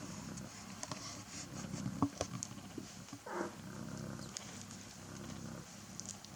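Cats purring steadily while kittens nurse, with scattered small clicks. A short, high kitten mew comes about halfway through.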